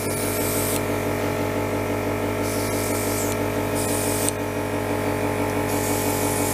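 Airbrush compressor running with a steady electric hum, while the gravity-feed airbrush sprays a dark weathering mix in short hissing bursts of under a second, four times.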